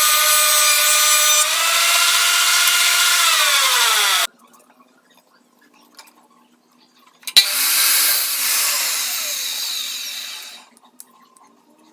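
Electric power tool cutting wood, its motor whine dipping under load, then falling in pitch as it winds down just after four seconds. After a pause it starts again with a click, cuts for about three seconds and winds down again.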